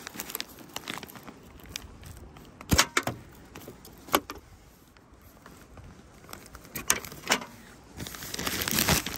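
Bungee cord hooks being unhooked from a metal car roof rack: a handful of separate sharp clinks and knocks of hook against rail, with the plastic wrapping of the tent rustling near the end.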